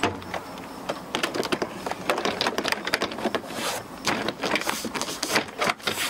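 A pickup's plastic door trim panel being pressed onto the door, its retaining clips clicking and snapping into place: a run of irregular sharp clicks and taps.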